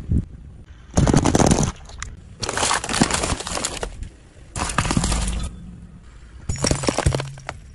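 A car tyre rolling over and crushing brittle objects: four separate bursts of cracking and crunching, each lasting from under a second to about a second and a half, with quieter pauses between them.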